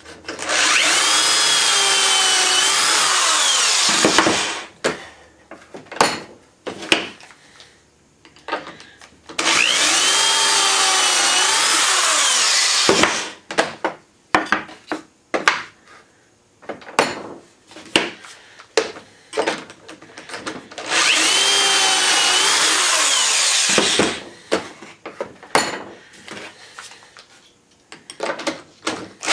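Corded drill boring pocket holes with a stepped bit through a pocket-hole jig: three runs of about three to four seconds each, the motor's pitch shifting as the bit cuts into the wood. Between the holes come scattered clicks and knocks from the board and jig clamp being handled.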